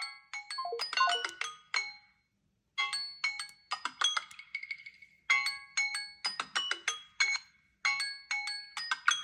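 Samsung Galaxy phone alert tone playing: a short melody of quick, bright notes that stops briefly about two seconds in, then repeats as a loop about every two and a half seconds.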